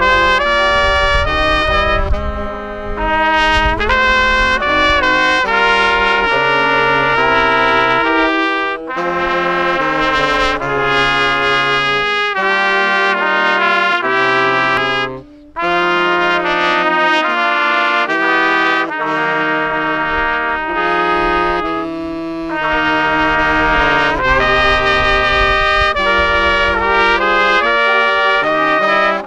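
A small band of saxophones and trumpets playing a tune together, with a short break in the notes about halfway through.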